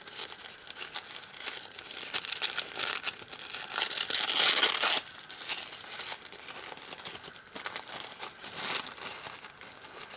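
Packaging being unwrapped by hand: continuous crinkling and tearing of wrapping, loudest for about a second around four to five seconds in, where it stops abruptly, then softer crinkles.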